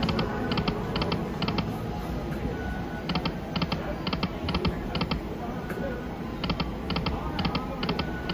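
Video slot machine reel-stop sounds: about five short clicks in quick, even succession as the reels land one after another. This repeats for three spins about three seconds apart, over a steady background hubbub.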